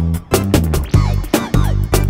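Background music: an upbeat funky track with a steady drum beat, plucked bass and guitar.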